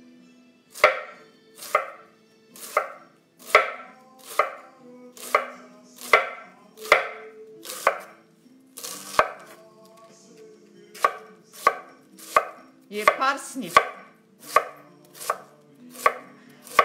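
Chef's knife slicing a head of cabbage into shreds on a wooden cutting board: a steady series of chops about one a second, with a short pause about ten seconds in.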